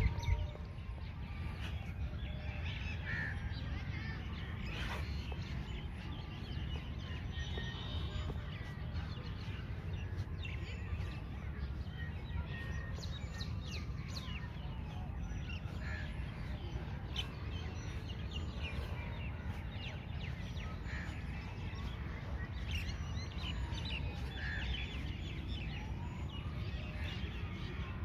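Outdoor ambience: birds chirping and calling at scattered moments over a steady low background rumble.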